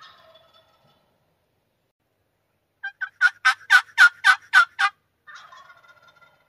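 Male wild turkey gobbling once: a loud, rapid rattling gobble of about nine pulses lasting about two seconds, starting about three seconds in.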